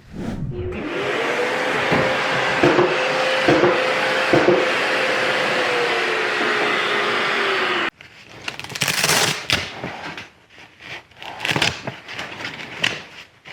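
Festool drywall sander with its dust-extraction vacuum running, a steady whir with a hum that rises early and sinks near the end, broken by three knocks. After about eight seconds it cuts off abruptly, followed by irregular rustling and knocking.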